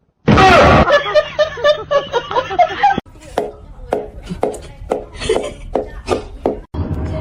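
A person laughing: a loud outburst of laughter, then a string of short separate laughs about twice a second.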